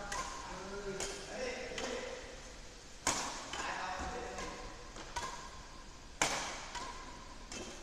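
Badminton rackets hitting a shuttlecock back and forth in a rally: about six sharp strikes, roughly a second apart. The loudest two come about three and six seconds in. Each strike echoes briefly in a large hard-walled hall.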